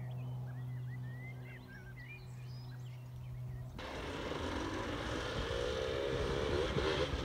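Birds chirping over a steady low hum for the first few seconds. About four seconds in, this gives way to enduro dirt bike engines running, their pitch wavering as the throttle changes, over a noisy rush.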